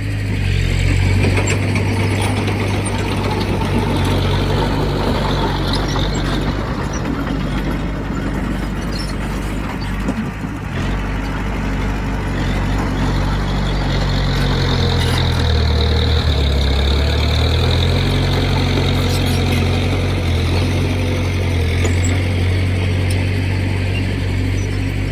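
Heavy earthmoving machine's diesel engine running steadily, its note dropping briefly a little past halfway and then picking back up.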